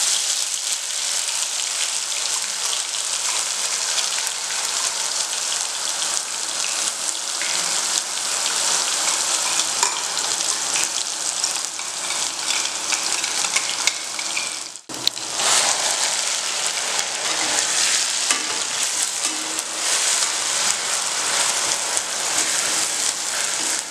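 Wet ground onion, green chilli and mint paste frying in hot oil in a pan: a loud, steady sizzle full of crackling as the water in the paste boils off. It drops out suddenly for a moment about fifteen seconds in.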